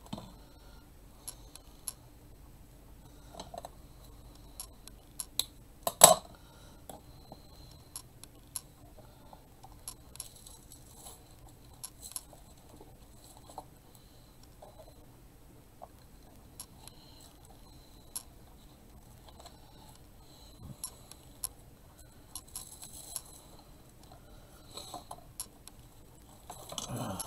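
Scattered small clicks and light rustling of artificial flower stems and greenery being handled and worked into a floral arrangement, with one sharper, louder click about six seconds in.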